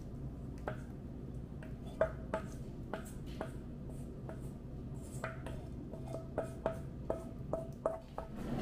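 Irregular light taps and clicks, many with a brief ring, over a steady low hum.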